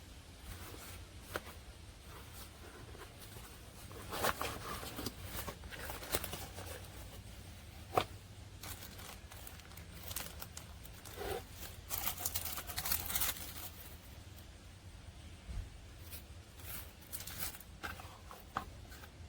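Handling noises: scattered sharp clicks and short bursts of rustling and crinkling over a steady low hum.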